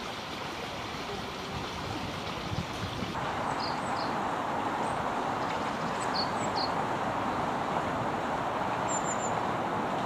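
Steady rushing outdoor background noise that gets louder about three seconds in, with a few faint, short, high bird chirps scattered through it.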